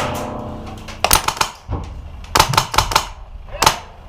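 Airsoft guns firing: about eight or nine sharp shots in irregular singles and quick pairs, with a brief ringing tone after the first one.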